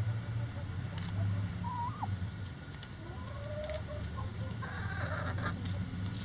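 Backyard hens clucking and giving short rising and falling calls, with a harsher, scratchy call about five seconds in, a few sharp ticks as they peck at a hanging cabbage, and a low steady hum underneath.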